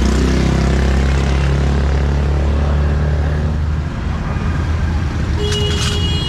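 A vehicle engine running close by, a steady low drone that drops away about four seconds in, over road noise. Near the end come a few sharp metal clinks with a short ring, a spoon against steel dishes.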